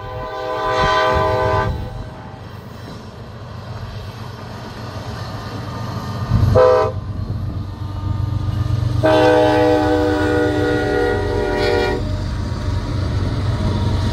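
BNSF diesel freight locomotives leading a coal train, sounding a multi-tone air horn: a long blast, a short one about six seconds later, then a long blast of about three seconds. Under the horn the locomotives' low engine rumble grows as they approach and pass.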